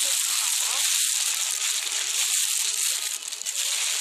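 Plastic bag or wrapping crinkling steadily as it is handled and rummaged through.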